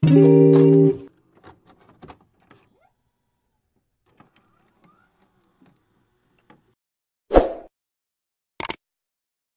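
Intro music: a held guitar chord that cuts off about a second in. Then a few faint ticks, a short rush of noise around seven seconds in, and two quick clicks near the end, the sound effects of an animated subscribe-button graphic.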